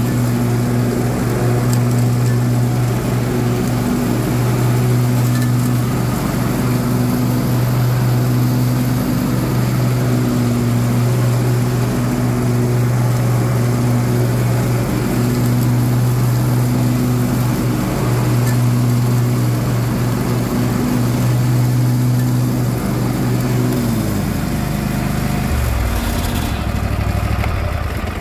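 Husqvarna TS 348XD lawn tractor running steadily while mowing with the cutting deck engaged. Near the end the engine slows, its note falling away, as it is throttled down and stopped.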